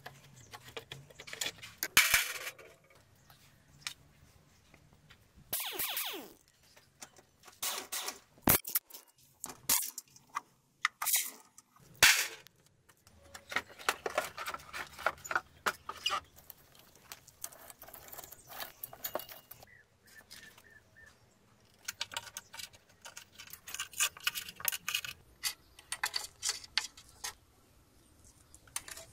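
Hand tools and loose metal and plastic parts clicking, scraping and clattering as a rusty motorcycle's body panels are unscrewed and lifted off, with a few sharp knocks.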